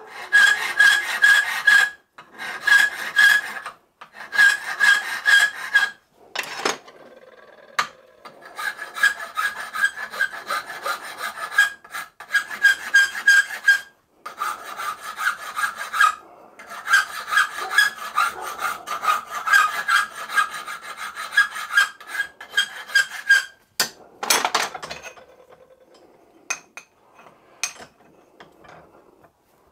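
Hand file stroking back and forth across the edge of a cast aluminium end casing clamped in a vise, dressing and blending a freshly trimmed edge. The rhythmic rasping comes in runs of strokes with a slight ringing note and short pauses. It stops about three-quarters of the way through, followed by a brief scrape and a few light knocks as the part is handled.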